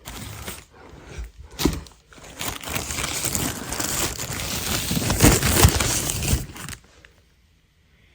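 Packaging being handled and unwrapped, a dense crinkling and rustling with a few sharper crackles, stopping about seven seconds in.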